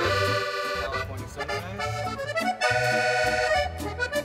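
Background music led by an accordion playing held chords, with a bass line of low notes underneath.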